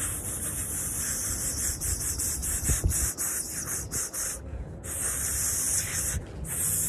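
A person blowing hard through the lips, trying for a loud fingerless whistle: only a breathy, high hiss of air comes out, with no whistle tone yet. There are three long blows, with short breaks about four and a half and six seconds in.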